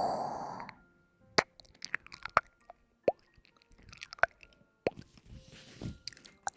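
Close-miked ASMR trigger sounds: a loud rustling hiss that fades out within the first second, then scattered soft, wet clicks and plops.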